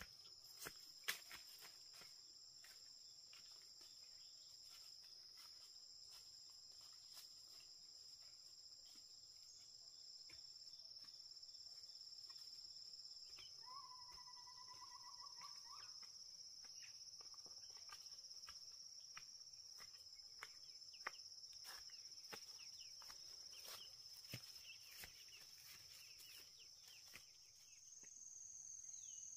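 Faint, steady high-pitched insect drone, with scattered light clicks and, about fourteen seconds in, a brief wavering animal call lasting about two seconds.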